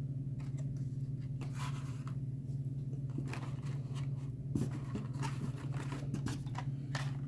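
Hot Wheels blister cards scraping and clicking against each other and the cardboard case as a hand digs one out of the stacked rows, over a steady low hum.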